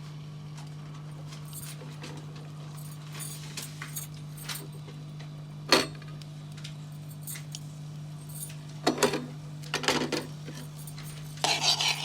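A metal spoon clinking against a cooking pan a few times, with one sharp strike about halfway through and quick runs of clinks near the end. A steady low hum runs underneath.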